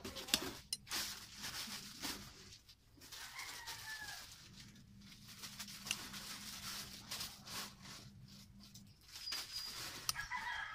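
Plastic bags and packaging rustling and knocking as goods are handled and unpacked, with a bird calling briefly twice, about three and a half seconds in and near the end.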